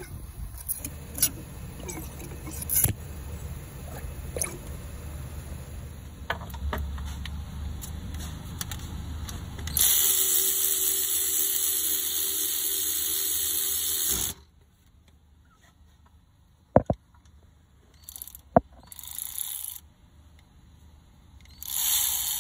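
Metal parts handled and clicking over a low rumble for about ten seconds. Then a power tool driving on a socket extension runs steadily for about four seconds and stops, followed by two sharp metallic clicks.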